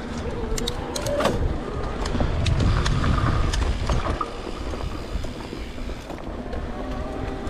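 Mountain bike being ridden along a trail: a steady low rumble of tyres and wind on the microphone, with scattered sharp clicks and rattles from the bike, which is running on a badly worn cassette.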